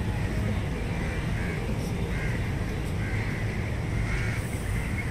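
Birds calling repeatedly in short calls, over a steady low rumble of city traffic.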